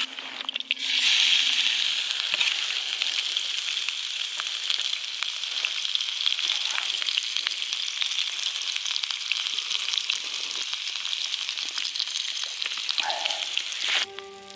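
Fish sizzling in a hot frying pan: a loud hiss that starts about a second in, then steady sizzling with fine crackles, cut off abruptly near the end.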